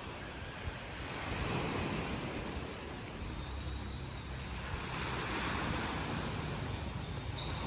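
Sea waves washing onto the shore, swelling twice and easing, with wind rumbling on the microphone.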